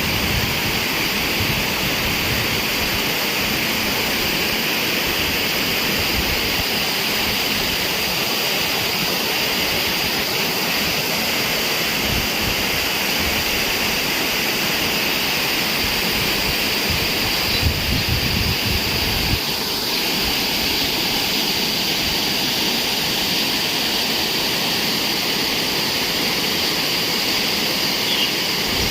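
Steady rush of water pouring down small waterfalls, with a short low rumble about two-thirds of the way through.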